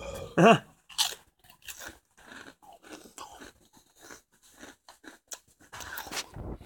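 Irregular close crunching and crackling right at the phone, as a crunchy snack is eaten from its plastic bag, with a short grunt about half a second in.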